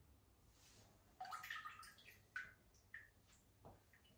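Faint water drips and a short trickle as a fishing feeder is lifted out of an aquarium: a brief patter of drops about a second in, then single drops falling back into the tank at intervals.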